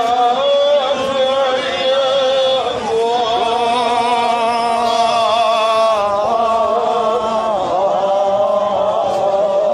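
A man's voice chanting a noha, a Shia mourning lament, in long held notes that waver and glide between pitches.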